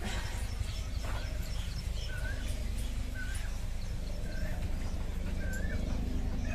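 A small bird chirping, a short call about once a second, over a steady low hum, with a few faint clicks.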